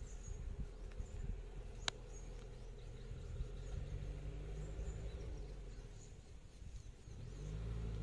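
Roadside ambience: short high bird chirps now and then over a steady low engine hum from idling vehicles, which grows a little louder near the end. One sharp click about two seconds in.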